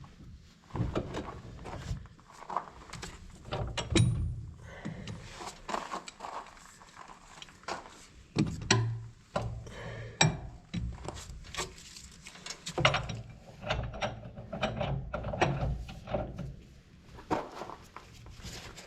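Hand tools being gathered and handled: irregular metal clanks, clicks and knocks.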